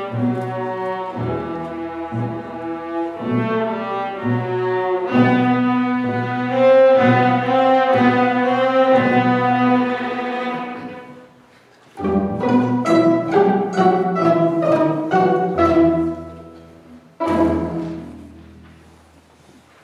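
Student string orchestra of violins, cellos and a double bass playing a piece to its close. The music stops for about a second near the middle, comes back with a run of short, sharp accented notes, and ends on one last chord that dies away.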